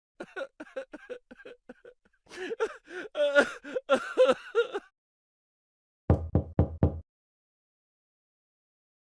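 A string of comedy sound effects: a quick run of short voice-like pulses, then a louder voice-like run that bends up and down, then after a pause five quick low buzzy pulses.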